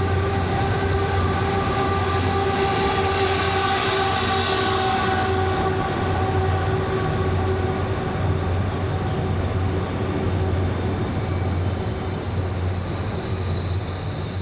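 Train running, a steady rumble carrying several held whining tones, with a swell of hiss about four seconds in.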